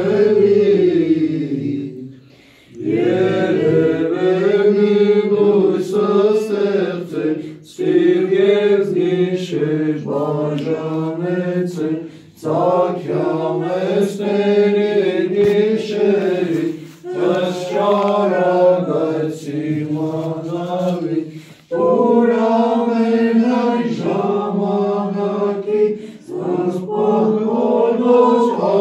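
A group of voices chanting an Armenian church hymn in Classical Armenian without accompaniment, phrase by phrase, with a short pause for breath every four or five seconds.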